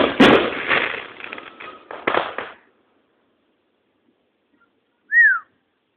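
Aerial firework shell bursting with a sudden bang and a crackle that fades over about two and a half seconds, with a second bang about two seconds in. A brief tone falling in pitch follows near the end.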